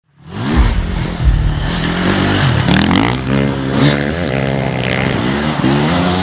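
Motorcycle engine revving up and down several times, fading in over the first half-second.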